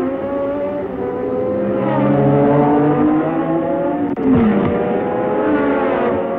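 1970s Formula One racing engines at high revs, their pitch climbing under acceleration. About four seconds in, one car passes close and its note drops sharply as it goes by.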